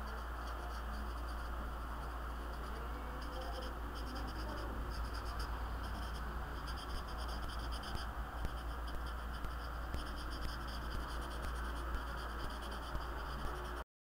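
Marker tip scratching on sketchbook paper in repeated quick strokes, colouring in a black area, over a steady low hum. The sound cuts off suddenly near the end.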